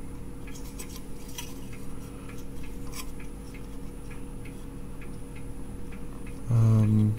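Small irregular clicks and light rattles from handling the oscilloscope's rotary attenuator switch assemblies, with a steady electrical hum underneath. A short held vocal 'mm' sounds near the end.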